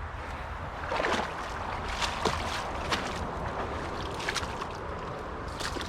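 Shallow creek water sloshing and splashing as a person wades and works a dip net through it, with several short splashes over a steady background of moving water.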